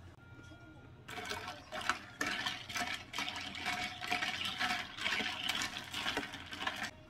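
Liquid poured from a plastic bottle into a glass, a splashing, crackly stream that starts about a second in and runs for about six seconds.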